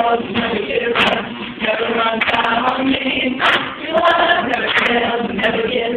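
A small group singing a worship song together, led by a singer on a microphone, with an acoustic guitar strummed in a steady rhythm.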